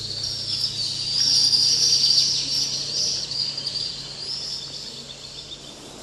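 Shrill insect buzzing in a dense, finely pulsing chorus that swells about a second in and fades away toward the end. A low held note from the guitar music fades under it at the start.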